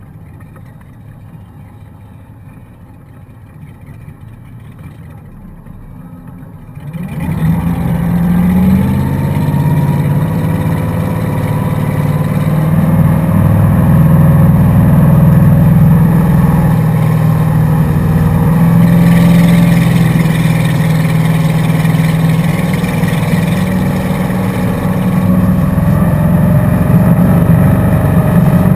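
Motorboat engine running at low throttle, then opening up sharply about seven seconds in and running hard at speed, with water rushing in the wake.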